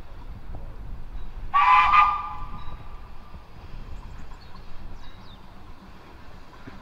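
Steam whistle of a Baldwin 4-6-0 tank locomotive, one short blast a little over half a second long, a chord of several tones, sounded as the engine slows for a foot crossing. A low steady rumble from the locomotive runs beneath it.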